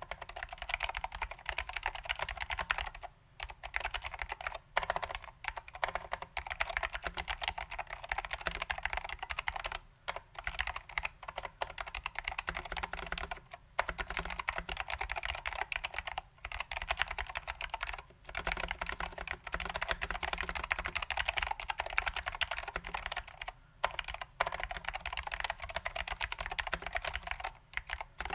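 Fast continuous typing on a mechanical keyboard with SKCM Salmon Alps switches lubed with dry lube and ABS doubleshot keycaps: a dense run of key clicks, broken by several short pauses.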